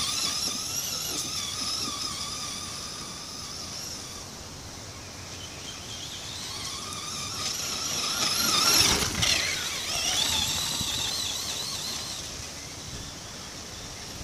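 Electric radio-controlled monster truck driving on grass, its motor and gears whining and rising and falling in pitch with the throttle. The whine is loudest about nine seconds in.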